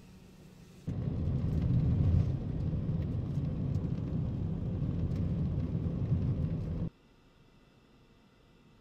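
Steady low road and engine rumble inside a moving car. It starts abruptly about a second in and cuts off suddenly near seven seconds, leaving only faint background noise.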